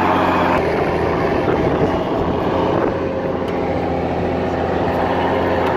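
Mercedes-Benz Unimog's diesel engine running steadily as the truck drives, heard from its open cargo bed.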